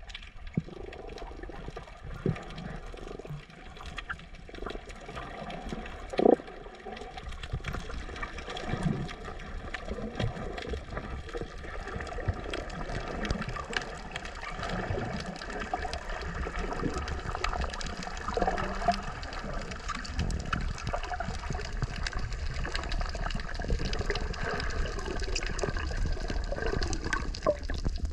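Underwater sound picked up by a submerged camera: a steady low rumble of moving water with scattered clicks and crackles, and one sharper knock about six seconds in.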